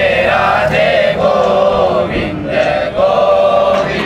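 Several voices chanting Sanskrit mantras together in a sustained, sung style.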